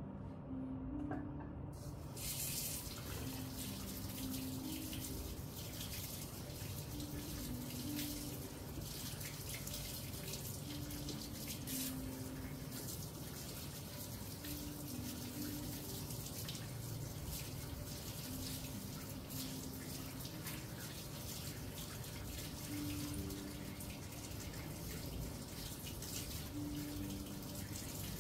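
Water running from a sink tap and splashing over bare feet as they are rinsed at the sink. It starts about two seconds in and then runs steadily.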